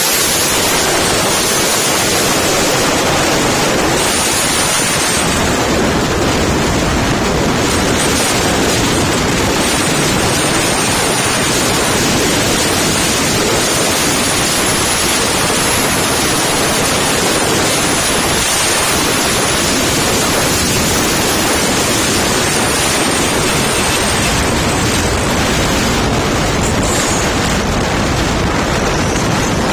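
Loud, steady wind noise on the microphone of a moving motorcycle, an even rush with no breaks.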